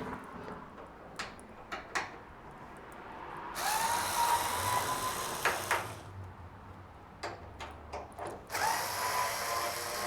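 Cordless drill/driver running in two bursts of about two seconds each, its motor spinning up to a steady whine, with a few sharp clicks of handling before the first.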